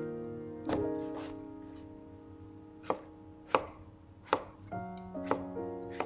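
Knife chopping vegetables on a cutting board: single sharp strokes about a second apart, over soft background piano music.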